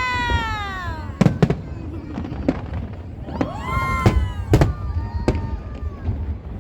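Aerial fireworks bursting: a run of sharp bangs and pops at irregular intervals. A drawn-out pitched tone that falls away in the first second and another that rises and falls about four seconds in sound over the bangs.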